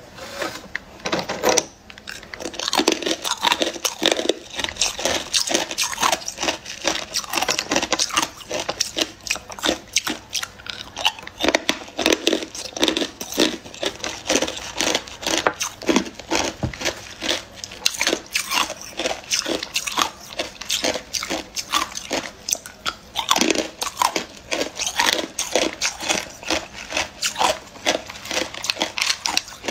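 Hard clear ice cubes being bitten and chewed: a dense, continuous run of sharp crunches.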